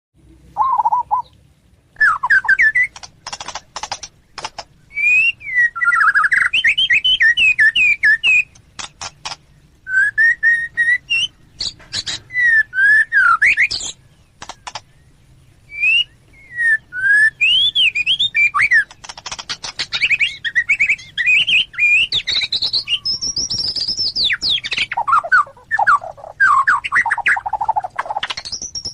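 A songbird singing a loud, varied song of quick whistled notes that swoop up and down in pitch, mixed with sharp clicking notes, in phrases broken by short pauses.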